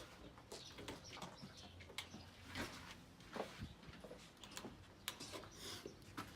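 Faint, scattered clicks and brief rustles.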